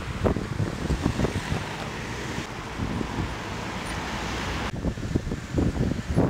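Road traffic noise from slow-moving lines of cars, with wind buffeting the microphone.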